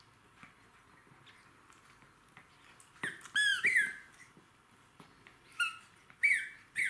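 Squeaker in a plush dog toy squeaking as two Jack Russell terriers bite it. Two squeaks come about three seconds in and three more near the end, each a short high note falling in pitch.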